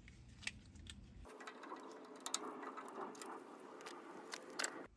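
Faint scattered clicks and light metallic handling as pliers work the spring clamp on a small engine's fuel line, over a quiet hiss. A low background hum drops out just over a second in.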